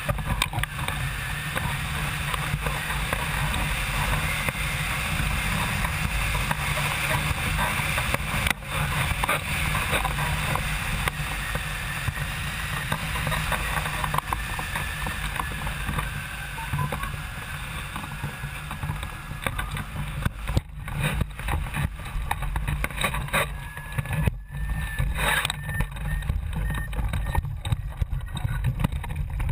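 Wind rushing over the microphone of a camera mounted on a flying hang glider: a steady, rumbling roar of air. In the last third it turns choppy, with several sharp knocks and bumps, as the glider comes down to the ground.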